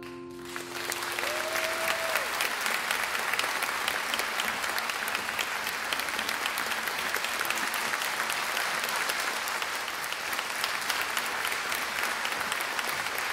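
The last chord of a Petrof grand piano dies away as an audience breaks into applause about half a second in. The clapping then carries on steady and dense.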